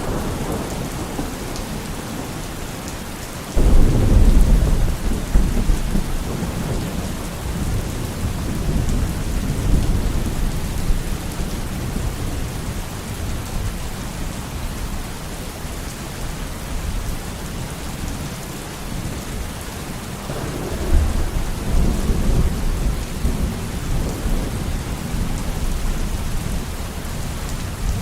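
Steady rain with thunder: a low rumble breaks in suddenly about three and a half seconds in and fades over several seconds, and a second rumble swells up about twenty seconds in.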